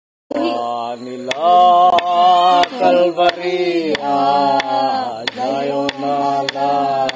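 A single voice singing a drawn-out, wavering tune in long held notes, starting just after the clip begins.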